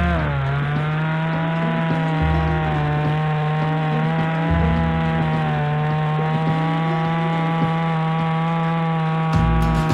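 Chainsaw running at full throttle while cutting through a Japanese maple log. Its pitch sags just after the start as the chain bites into the wood, then holds steady under load.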